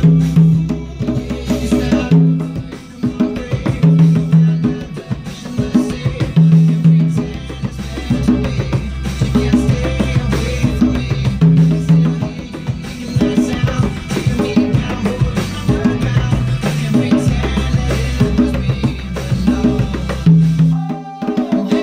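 A pair of conga drums played by hand in a tropical Latin rhythm, a steady run of sharp slaps and open tones. They are played along with a recorded pop song from a TV speaker, whose bass line repeats underneath.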